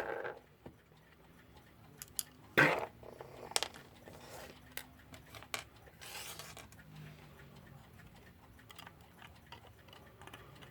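Small metal parts of an electric clock movement being handled and pried at, giving scattered light clicks and taps, with one louder knock about two and a half seconds in.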